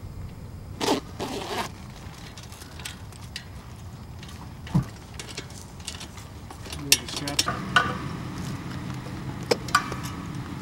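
Gloved hands rustling and scraping a rope, a knock, then several sharp metallic clicks and clanks as a hot air balloon's burner frame is fitted onto the basket's uprights.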